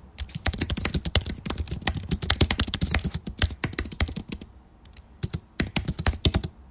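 Fast typing on a computer keyboard, a quick run of key clicks with a short lull of about a second a little past halfway before it picks up again.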